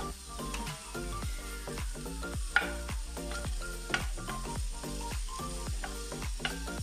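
Background music with a steady beat, over chopped onion and garlic sizzling in oil in a pot. A sharp tap comes about two and a half seconds in and a smaller one about a second later.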